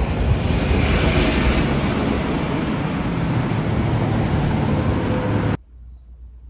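Wind buffeting a phone's microphone outdoors, a steady loud rumble, with a car driving past on the street. It cuts off suddenly near the end to quiet room tone.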